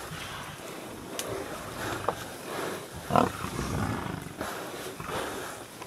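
Lions growling as they feed on a Cape buffalo. The rough growls come irregularly, with one louder, sharper outburst about three seconds in.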